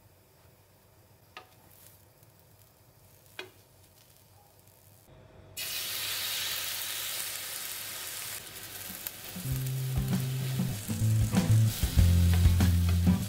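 Quiet at first, with a few faint taps. About five seconds in, tomato slices laid on a hot nonstick frying pan start sizzling loudly and keep on frying.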